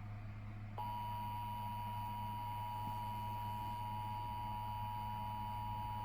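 Emergency Alert System attention tone: a steady electronic tone near 1 kHz that starts about a second in, over a low hum.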